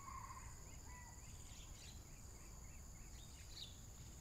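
Faint outdoor ambience: a steady high insect drone, with a bird's short chirps repeating about twice a second over the first few seconds.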